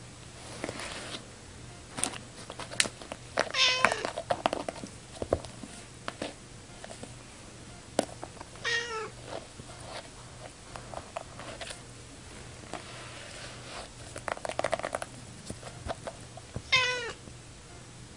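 Tabby cat giving three short, wavering, falling meows, about four, nine and seventeen seconds in, with scattered scratching and clicks between them.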